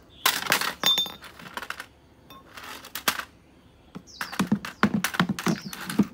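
Hammer knocking and prying at the side of an old wooden loudspeaker cabinet: clusters of sharp knocks and metallic clinks, coming thick and fast in the last two seconds.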